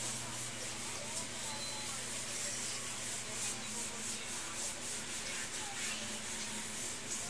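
Cloth rag scrubbed back and forth by hand on a plank floor: a quick run of short rubbing strokes, with a steady low hum underneath.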